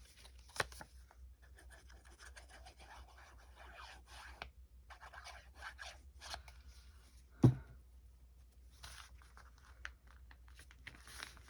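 Paper rustling and crinkling with small clicks as pieces of paper are handled and placed on a notebook page, with one sharp thump about two-thirds of the way through.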